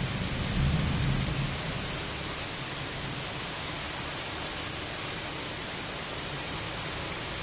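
Heavy rain pouring steadily onto a cobblestone pavement, with a low rumble of thunder dying away in the first second or two.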